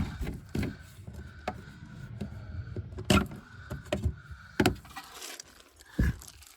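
Plastic clicks, knocks and rubbing as a marker light housing is pushed and worked loose from the car's bumper by hand: a handful of sharp knocks spread through, loudest about three seconds in and again near the end.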